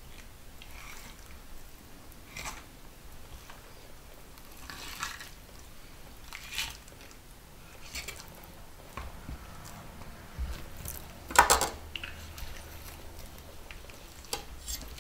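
Curved fillet knife slicing a coho salmon's flesh away from the bones on a cutting board: short soft scrapes and wet squishes every second or two, with one louder clack about eleven seconds in.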